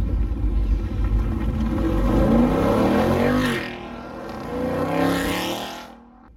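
Muscle cars pulling out one after another over a low engine rumble. Two engines rev up and fall away in turn as they pass, and the sound drops off sharply near the end.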